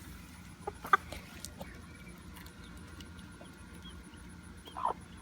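Chickens clucking softly now and then: a few short, separate calls, one about a second in and another near the end.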